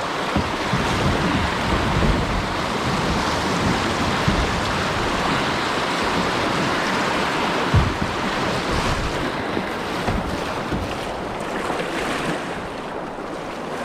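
River rapids rushing: a steady wash of white water, with wind buffeting the microphone and a few low knocks, the sharpest about eight seconds in.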